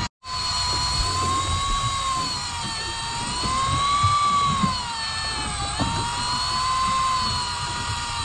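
Electric deep-drop reel's motor whining as it winds in a fish from the bottom, its pitch slowly rising and sagging as the load changes. The motor is labouring against a heavy fish.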